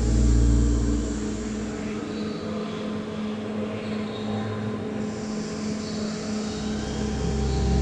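Ambient soundscape of sustained droning tones under a rushing, hissy noise layer; the deep bass thins out in the middle and swells again near the end.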